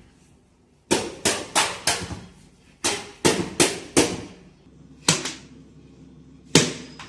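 A series of sharp knocks or bangs in irregular groups: four quick ones about a second in, four more around three seconds in, then a close pair and two single knocks near the end, each dying away with a short ring.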